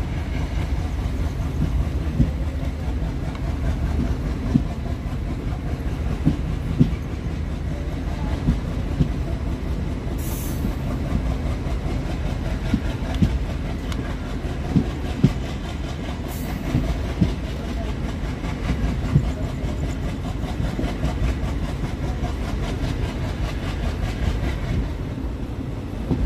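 ICF passenger coach running along the track: a steady low rumble of wheels on rail with irregular clicks over the rail joints. Two short bursts of high hiss come through about ten and sixteen seconds in.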